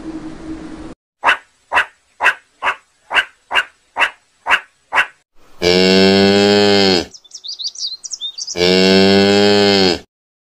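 Cow mooing twice, each a long, low moo of about a second and a half, with a bird singing briefly in the gap between them. Before the moos, a quick run of about nine short, sharp sounds, about two a second, follows a second of steady hum that cuts off.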